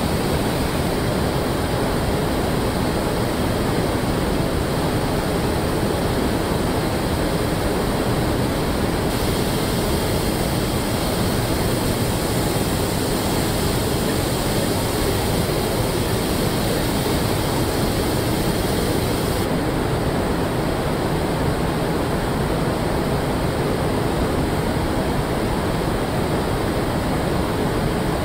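Steady rushing air noise of a robotic car-body paint booth, its hiss brightening about a third of the way in and dulling again about two thirds of the way through.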